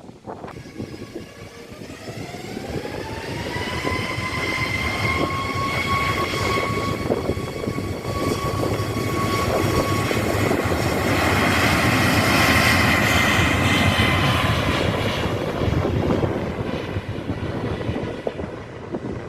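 Airliner jet engines spooling up, a whine rising over the first few seconds and then holding steady. A rushing roar grows as the plane passes, loudest about two-thirds of the way in, then fades.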